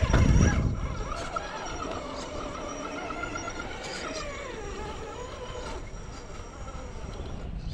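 Electric motor and gears of a radio-controlled rock crawler whining as it crawls over rock, the pitch wavering and dipping with the throttle, after a brief loud rumble at the start.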